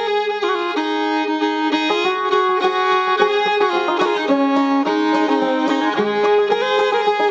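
Instrumental break of an Irish folk song: a fiddle plays a melody of held, moving notes over a string accompaniment.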